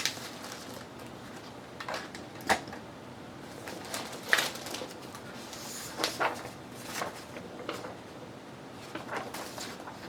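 Craft papers and small pieces being handled on a worktable: about eight short taps, knocks and rustles scattered irregularly, the loudest a little over four seconds in.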